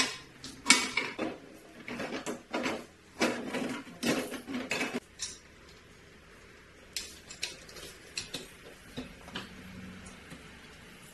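Hard plastic seat and backrest parts of a folding gymnasium chair knocking and clattering against its metal frame as they are fitted together. There is a run of loud knocks in the first five seconds, then lighter, scattered clicks.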